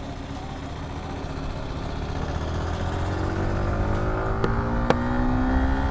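Yamaha R15 V4's 155 cc single-cylinder engine accelerating, its pitch rising steadily as the bike picks up speed. Two sharp clicks come near the end.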